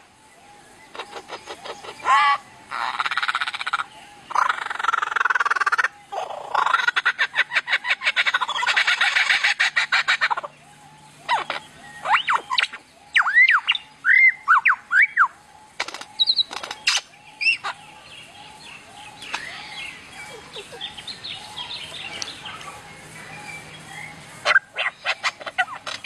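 Superb lyrebird singing a run of mimicry: fast buzzy trills, then a series of whistled notes sweeping up and down, a few sharp clicks, and softer chatter.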